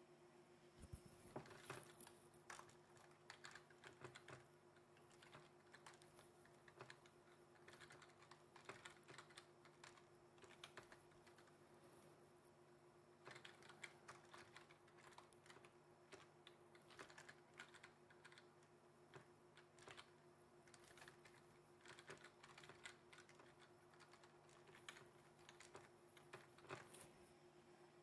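Faint typing on a computer keyboard: irregular runs of key clicks with short pauses, over a faint steady hum.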